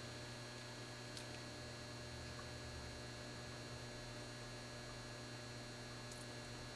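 Faint steady electrical mains hum with a thin high whine over it, and a couple of faint ticks about a second in and near the end.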